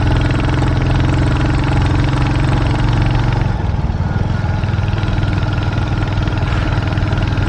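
Royal Enfield 350 single-cylinder motorcycle engine running under load in a low gear on a steep climb, which it struggles to pull even in second gear. Its note drops about three and a half seconds in.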